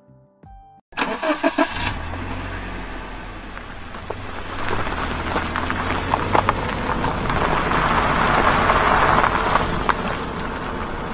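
Car engine starting with a few quick stuttering pulses about a second in, then running with a low hum and growing louder as the car pulls away, loudest a couple of seconds before the end.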